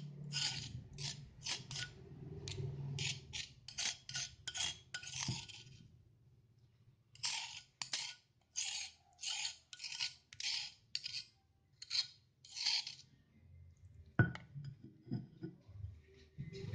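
Rhythmic scraping of a kitchen utensil on a hard surface: short rasping strokes about two to three a second, in two runs with a pause of about a second and a half between them. About fourteen seconds in comes one sharp knock, followed by a few softer knocks.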